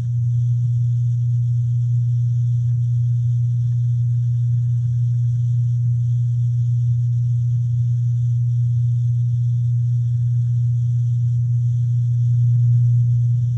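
A steady low mechanical hum at one unchanging pitch, with a faint high hiss above it, swelling slightly near the end.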